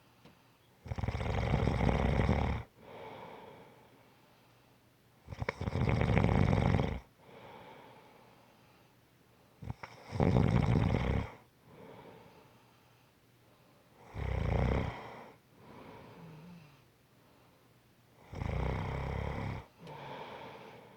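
Snoring in a slow, regular rhythm: five loud, rough snores about four seconds apart, each followed by a softer breath.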